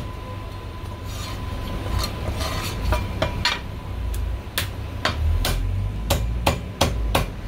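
Cleaver chopping marinated goose on a thick round chopping block: a series of sharp chops, a few spread out at first, then coming about twice a second in the second half.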